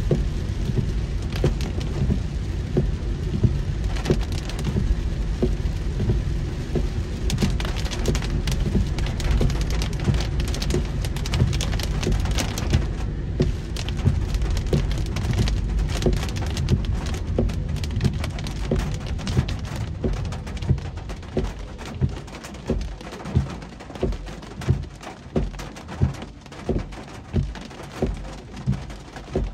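Heavy rain pattering on a moving car, with steady low road and tyre rumble. About two-thirds of the way in the rumble drops away, and a regular thump a little more than once a second stands out under the rain.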